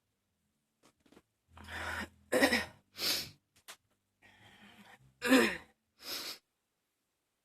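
A woman coughing in a fit: three harsh coughs in quick succession, a faint wheezy breath, then two more coughs.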